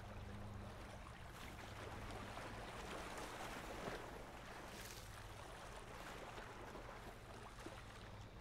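Faint lakeshore ambience: small waves lapping softly on a rocky shore, with a steady low hum underneath.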